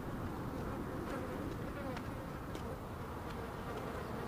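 Flies buzzing, a faint wavering drone over a steady low rumble of ambience, with a few light ticks.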